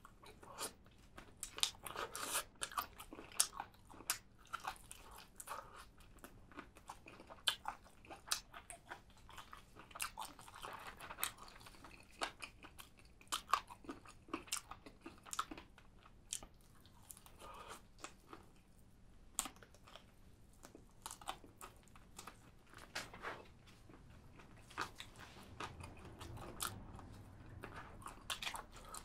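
Close-miked eating sounds of a person chewing spicy chicken feet: irregular bites, crunching and wet chewing clicks.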